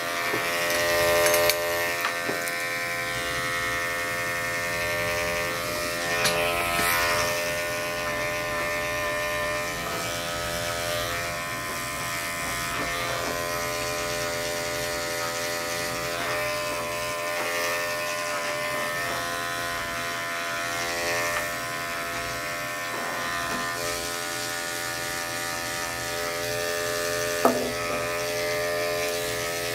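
Corded electric dog clippers running steadily as they shave a matted coat down close to the skin. A short sharp click comes near the end.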